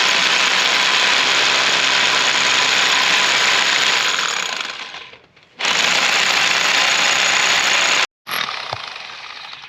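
Bauer electric hammer drill running in hammer mode against concrete, a loud dense steady noise. It winds down about five seconds in, starts again half a second later, and stops abruptly near eight seconds before carrying on more faintly. The owner thinks it sounds like the drill is wearing out and overheating.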